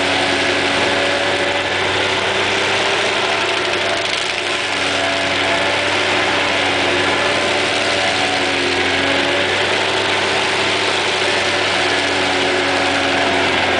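Excavator-mounted stump grinder running steadily, its separate 200 hp engine held at high speed with a constant hiss over the engine note. The pitch sags slightly now and then.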